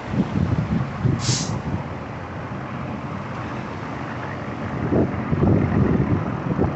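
Western Star 4900 vacuum truck's diesel engine idling, with a short hiss of released air about a second in. Wind buffets the microphone more strongly from about five seconds in.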